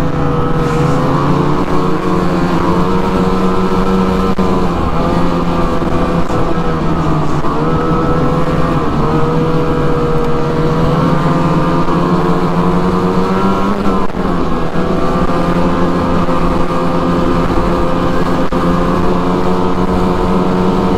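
Ski-Doo MXZ 600 E-TEC snowmobile's two-stroke twin engine running steadily under way, its pitch dipping briefly a few times.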